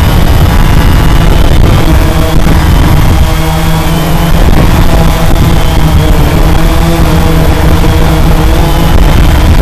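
CX-20 quadcopter's four brushless motors and propellers running steadily in a hover, heard close up from the onboard camera. A steady drone whose pitch shifts slightly as the motors adjust, over a heavy low rumble of vibration and wind on the microphone.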